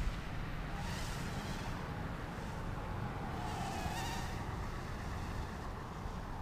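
Whine of a Phoenix Flight Gear 110 mm micro quadcopter's 8 mm 0820-15 motors flying overhead, a thin insect-like buzz whose pitch wavers with the throttle. It swells into brighter passes about a second in and again around four seconds.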